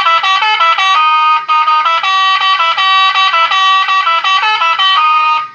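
Electronic telolet bus-horn module playing a quick melody of stepped notes through a horn-shaped toa loudspeaker, loud and bright; the tune cuts off just before the end.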